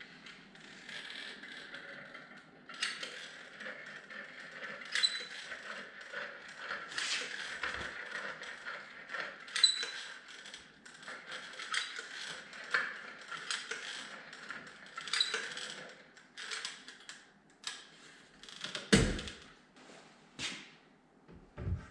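Irregular creaking and ratchet-like clicking from hand tools and trim pieces being worked, with scattered sharp clicks and a heavier knock about 19 seconds in.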